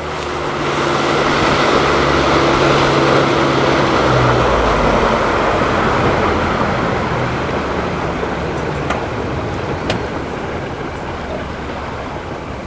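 A small fishing boat under way: its engine running with water rushing along the hull. The engine tone fades out about halfway through and the whole sound slowly eases off as the boat slows.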